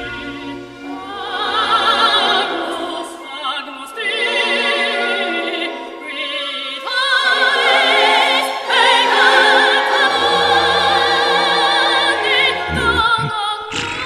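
Operatic singing: a high voice holding long notes with a wide vibrato, over orchestral music.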